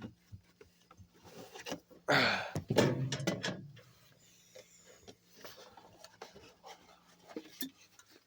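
Cans and cardboard packaging being handled: a loud rubbing scrape about two seconds in, with scattered light knocks before and after.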